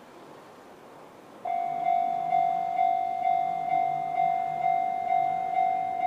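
Japanese railway level crossing's electronic warning bell, the JR East 'Tohoku'-type tone, starting suddenly about a second and a half in and then ringing in even strikes, about two a second. It signals that a train is approaching.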